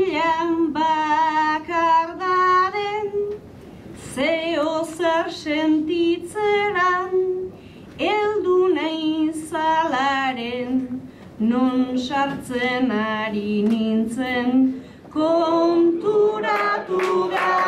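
A woman singing an improvised Basque bertso solo and unaccompanied into a microphone, in sung lines of a few seconds each with short breaks for breath between them.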